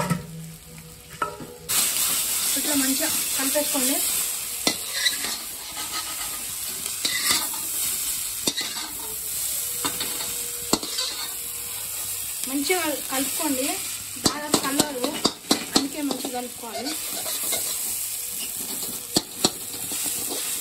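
Noodles stir-frying in a kadai: a steady sizzle, with a metal spatula scraping, clicking and knocking against the pan as it tosses them. The sizzle comes up about two seconds in.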